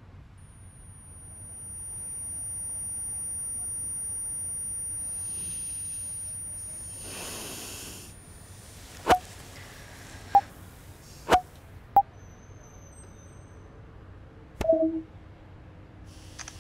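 Smartphone touch-screen interface sounds: four sharp tap clicks, each with a short tone, in the second half, then a short falling two-note tone near the end as a photo is deleted. Before them, a soft rushing sound swells and fades.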